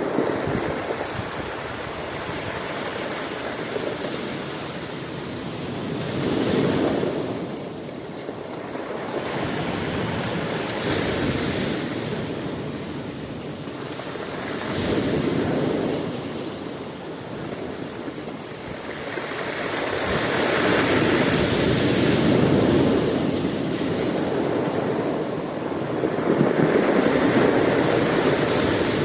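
Sea waves breaking and washing on the shore, a rushing surf that swells and falls back every four to six seconds.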